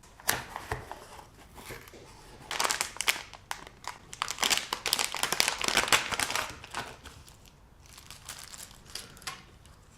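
Amplifier board's packaging being unwrapped by hand: crinkling and tearing, in bursts that are loudest through the middle and die down near the end.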